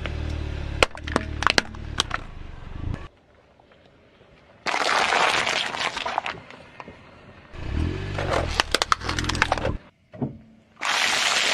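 Car tyre rolling slowly over objects and crushing them in turn. In the first few seconds a plastic toy helmet gives a low rumble and a run of sharp cracks. Then comes a squashing, crackling stretch over a plastic tray of tomatoes, and near the end a dense crunching as a tray of candy-coated chocolates is run over.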